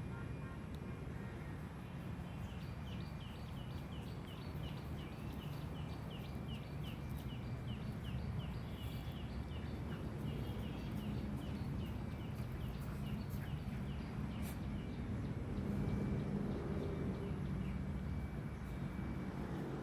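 A bird calling a long run of short, high chirps, about three a second, over a steady low outdoor rumble; the chirping stops a few seconds before the end.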